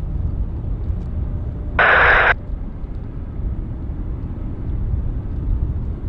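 Air-traffic-control radio scanner giving a half-second burst of squelch static about two seconds in, over a steady low rumble of airport background noise.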